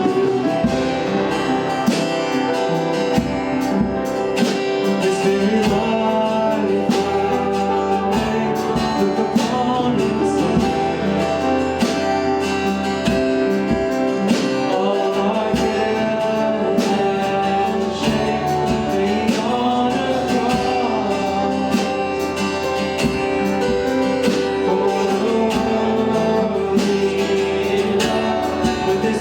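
A live worship song: singing over acoustic guitar and other instruments, with a steady beat.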